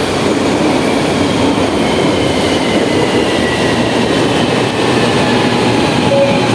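LRT train running along the platform with a steady rumble and rattle of wheels on rail. A faint high motor whine slowly falls in pitch as the train slows.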